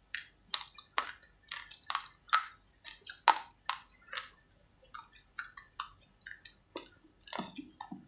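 Uncooked raw rice grains crunched between the teeth close to the microphone: an irregular run of sharp, crackly crunches, several a second.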